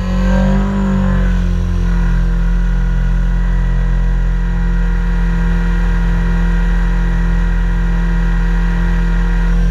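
Helicopter running steadily, a loud, unchanging mechanical drone of several held tones over a deep hum, with a brief dip and rise in pitch in the first second or so.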